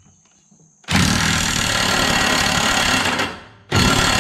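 DeWalt cordless impact tool running the blade nut tight on a lawnmower deck spindle, in two bursts of rapid hammering: one of about two seconds starting about a second in, and a second starting near the end.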